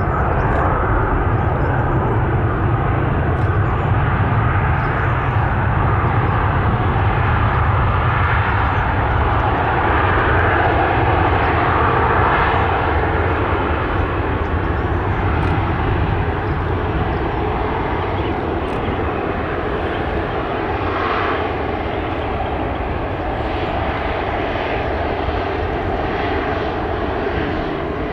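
Airliner's engines running loud as the aircraft passes, the noise gradually fading over the second half.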